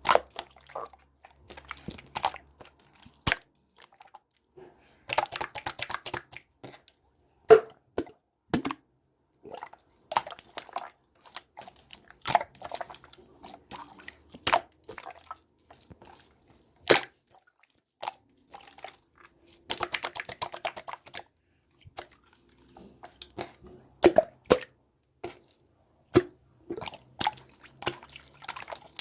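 Slime being squeezed and pressed by hand: clusters of sticky crackling clicks and wet pops, broken by short pauses.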